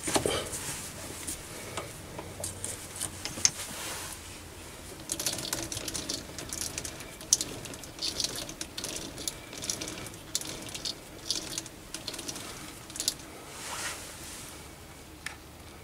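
Chinese mini lathe at work: irregular sharp metallic clicks and ticks over a faint low motor hum.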